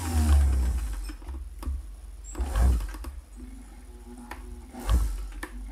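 Singer 328K sewing machine motor, run for bobbin winding, spinning down near the start. It then gives three brief low whirring spurts a second or two apart, with light clicks between them.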